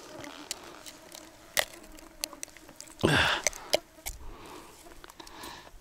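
Small clicks and scrapes of fishing pliers working in a snakehead's mouth to free a deeply swallowed frog lure, with a short scuffling burst about three seconds in.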